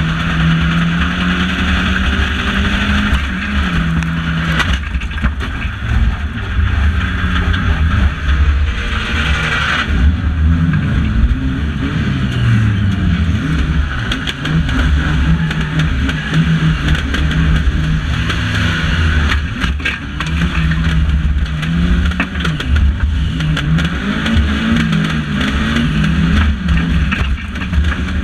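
Banger racing car's engine heard from inside the stripped cabin, its revs rising and falling again and again under hard driving. Sharp knocks and rattles from the car a few times, such as about five, ten and twenty seconds in.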